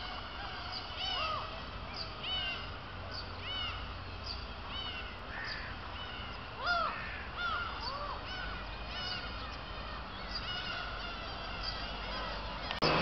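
Black-tailed gulls calling: a running series of short, arched cries from several birds, some high-pitched and some lower.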